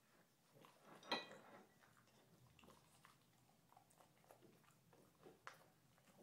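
French bulldog chewing and smacking her food, faint, irregular clicks. One louder sharp click about a second in.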